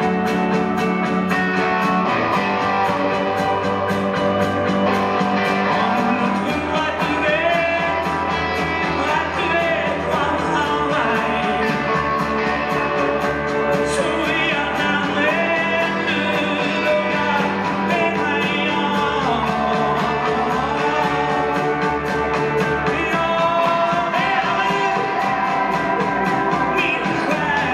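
Rock band playing live: electric guitars, bass and drums keeping a steady beat, with a voice singing over them from about seven seconds in.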